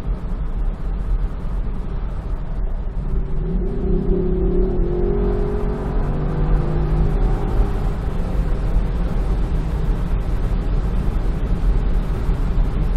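Lexus LC 500's 5.0-litre 2UR-GSE V8 under full throttle in manual mode: the engine note climbs about two to three seconds in, then holds at one pitch for several seconds at redline, on the rev limiter, because the car does not upshift by itself. A steady low rush of wind and road noise runs underneath.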